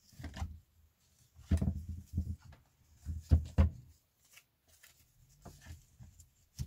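Handling noise from a JBL Charge 3 Bluetooth speaker being reassembled: its plastic shell and rubber end caps rubbing and knocking together and against the tabletop. There are several dull thumps, in clusters about one and a half seconds in and again around three and a half seconds.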